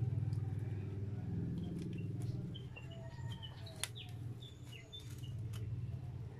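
Small birds chirping in short, falling chirps over a steady low hum, with a few light crackles and clicks of aluminium foil as a burger is handled, one sharp click about four seconds in.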